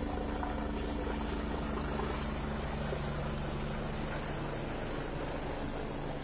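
Helicopter flying low overhead: the rotor and turbine engines make a steady drone with a few low humming tones.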